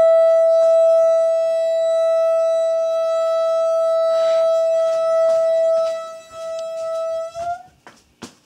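A loud, steady high-pitched siren-like tone with overtones, coming from something in a house's utility room. It holds one pitch, rises slightly and cuts off about seven and a half seconds in, and a few sharp clicks follow.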